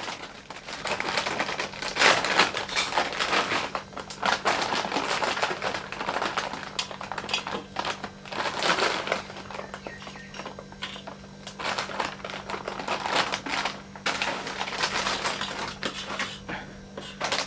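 Plastic snack packets crinkling and rustling in uneven bursts, with small clicks, as dry namkeen is spooned out of them.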